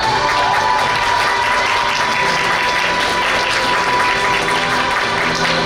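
Audience applauding over the program's recorded music, with one long held note sounding through the first few seconds.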